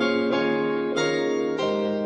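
Background music: electric piano playing a sequence of sustained chords, changing about every half second.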